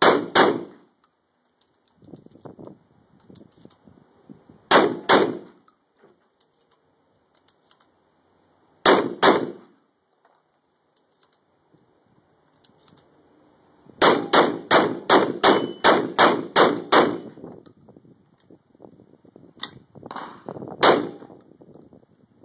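Shotgun firing: a pair of shots, another pair, a single shot, then a fast string of about ten shots at roughly three a second, and two more near the end. In the gaps, quieter clicks of shells being loaded into the magazine tube.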